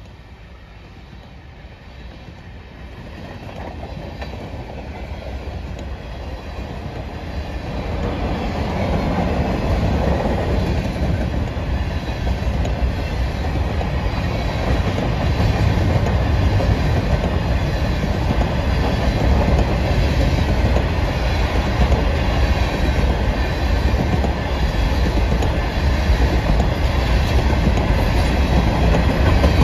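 Freight train of covered hopper cars rolling past on the rails. The rumble builds over the first eight seconds or so, then stays loud and steady.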